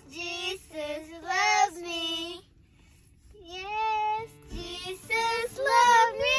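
A child singing a melody in high, held notes, phrase by phrase, with a pause of about a second midway.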